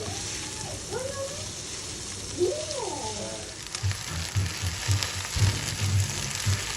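Food frying in a pan, a steady sizzling hiss. From about four seconds in, a run of low, irregular thumps joins it.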